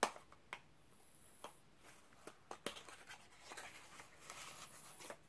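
Faint handling sounds of a skincare oil bottle being taken out of its packaging: light rustling with scattered soft clicks and taps, one sharper click at the start.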